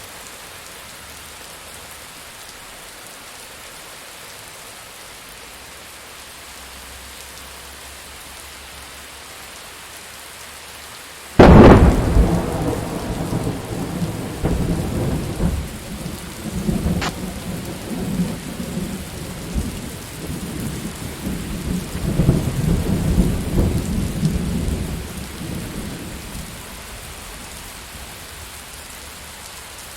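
Steady rain falling, broken about a third of the way in by a sudden sharp thunderclap that rolls into a long rumble, swelling again before fading back under the rain.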